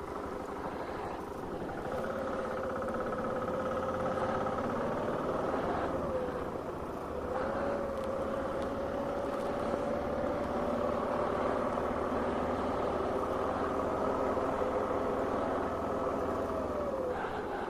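Car engine and road noise heard from inside the moving car. The engine note climbs slowly, dips about six seconds in, climbs again for most of the rest, and falls off near the end.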